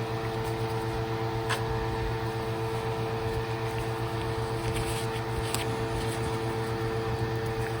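Steady mechanical hum of a running motor such as a shop fan, with a couple of faint clicks about a second and a half in and again near the five-second mark.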